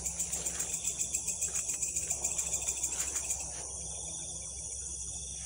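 Crickets chirping in a rapid pulsing rhythm, about five pulses a second, which settles into a steadier trill about three and a half seconds in.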